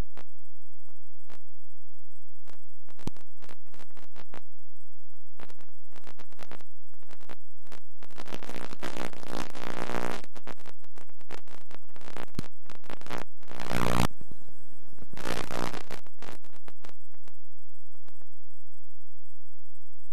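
Faint playback noise from a VHS tape running past its programme: a steady hum and a thin high whine, scattered clicks and crackles, and a few bursts of louder buzzing noise about halfway through and twice more shortly after.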